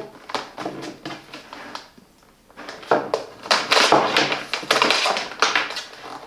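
Hands handling a plastic drip coffee maker and its power cord in the cable storage: light plastic clicks, taps and knocks. There is a short pause about two seconds in, then denser clicking and rustling.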